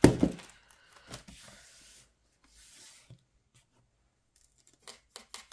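Plastic binder sleeves and paper pages rustling and rubbing as a ring binder is flipped through and handled. A few light clicks near the end.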